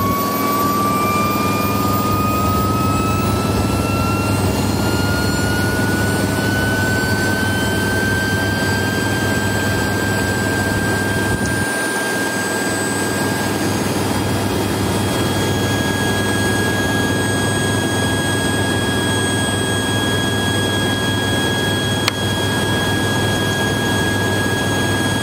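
IHI Dynajet micro gas-turbine generator running, its turbine whine rising in pitch over the first eight seconds or so and then holding steady over a steady low hum. A single short click about 22 seconds in.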